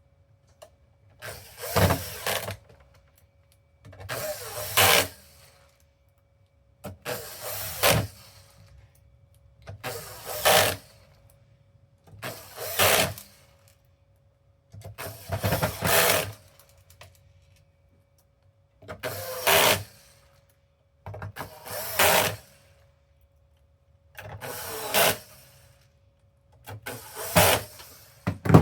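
Power drill driving screws back into a PlayStation 5 console: ten short runs spaced about three seconds apart, each ending in a loud burst as the screw tightens.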